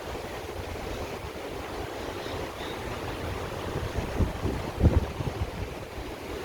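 Wind rushing over and buffeting the microphone on a ship's open deck, with stronger gusts about four and five seconds in.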